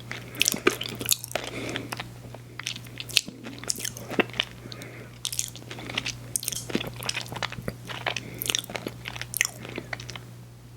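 Close-miked biting and chewing of a frozen ice cream sandwich: irregular crunchy, wet clicks and crackles in quick succession that die away near the end.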